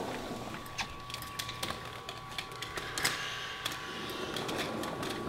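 Scattered light clicks and clatters as someone comes in through a back door and pushes past vertical blinds, over a faint steady hum. A sudden loud thump comes right at the end.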